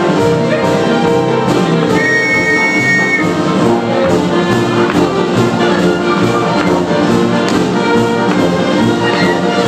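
Live ragtime dance band with brass and fiddle playing a lively tune. About two seconds in, a whistle is blown once for about a second over the music, the signal in a whistle mixer for dancers to change partners.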